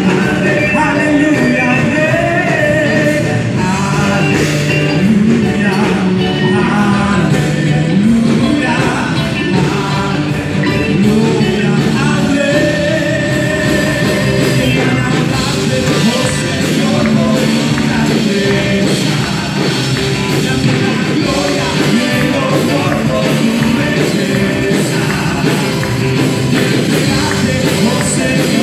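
Live worship band playing an upbeat song, with a lead singer over acoustic and electric guitars, keyboards, saxophone, congas and drum kit.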